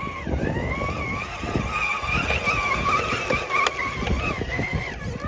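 Radio-controlled scale crawler's electric motor and gearbox whining, the pitch rising and falling as the throttle is worked, with knocks and clatter of the rig's tyres and chassis on the course.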